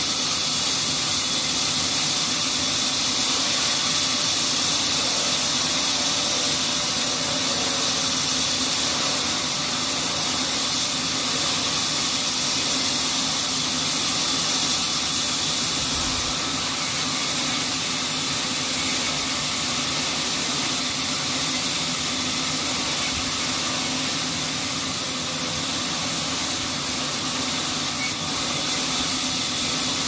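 Horizontal band sawmill running and sawing through a teak log: a steady, loud hiss of the blade in the wood over a constant low machine hum.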